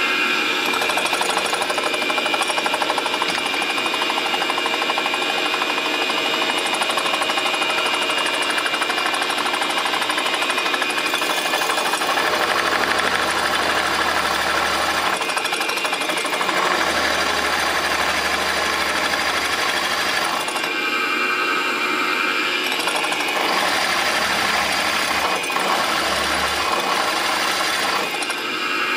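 Milling machine spindle running steadily with a whine of several steady tones, as a spot-facing cutter is fed down into a BMW motorcycle cylinder head to cut the seat for a second spark plug hole.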